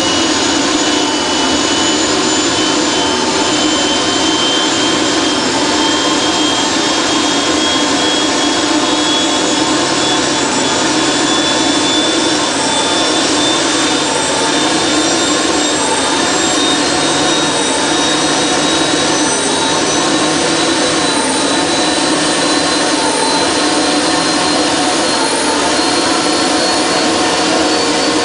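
Solar Saturn 750 kW liquid-fuelled gas turbine generator running unloaded just after an engine rebuild: a loud, steady rush with a high turbine whine that slowly rises in pitch.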